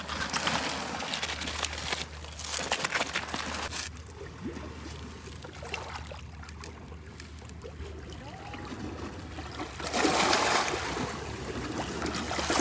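Seawater washing and trickling among shoreline rocks and pebbles, crackly at first, then quieter, then a louder wash about ten seconds in.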